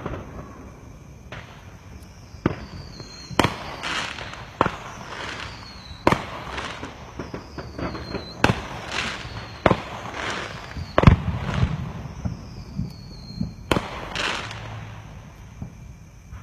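Aerial fireworks display: a rapid, irregular run of sharp bangs from bursting shells, about a dozen, several trailed by crackling, the loudest about two-thirds of the way through.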